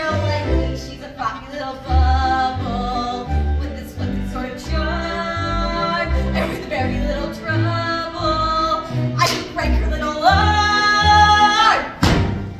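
A woman singing a solo over an instrumental backing with a bass line; near the end her voice slides up onto a higher held note.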